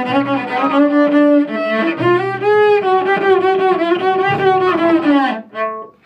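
Cello bowed in a short phrase of long held notes that stops about five seconds in.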